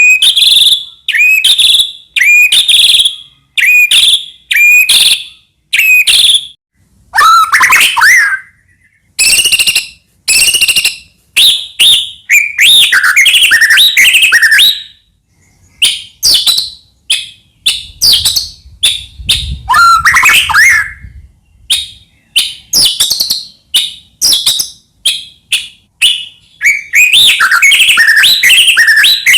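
White-rumped shama (murai batu) singing loudly: a rapid run of varied whistled and trilled phrases, each lasting well under a second to a few seconds, with short silent gaps between them.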